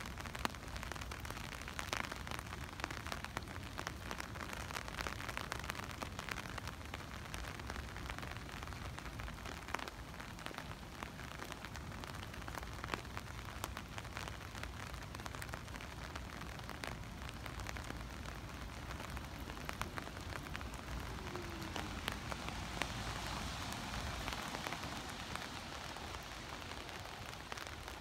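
Heavy rain falling on a wet street and sidewalk: a steady hiss dense with sharp ticks of close drops. The hiss swells fuller for a few seconds about three-quarters of the way through.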